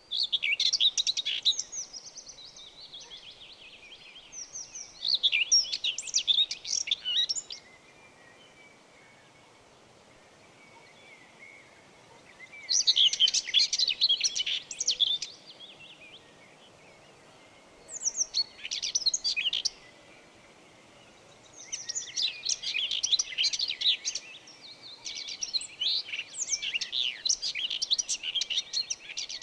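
Songbirds chirping and singing in bouts of rapid, high-pitched twittering that come and go, with a faint steady background hiss between the bouts.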